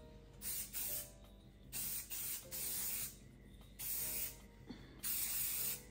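Perfect Choice oil sheen spray can hissing in about seven short sprays of different lengths, the last one the longest, as the sheen is misted over wig hair.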